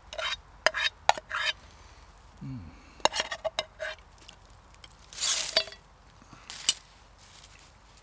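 Metal spoon scraping and tapping macaroni cheese out of a metal camping pot onto an enamel plate: a run of sharp clinks, some with a brief ringing note, and a longer scrape about five seconds in.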